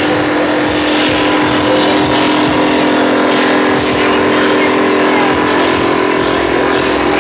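Steady din of a crowded exhibition hall: many voices blending into noise over a constant low hum.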